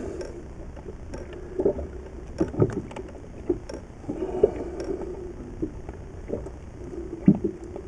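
Irregular knocks and bumps aboard a small inflatable boat at sea, a few sharp ones standing out, over a low steady rumble of wind and water.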